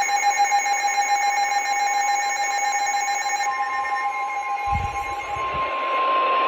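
Emergency Alert System attention tone: a loud, steady alarm of two pitches sounding together. A few seconds in, the lower pitch fades out and the higher tone holds on alone, with a short low rumble briefly under it.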